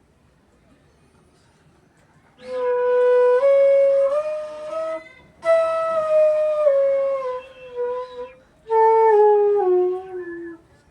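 E bass bansuri (bamboo flute) played in three short melodic phrases starting about two seconds in: the first steps upward, the second and third step downward, the last ending on the lowest notes.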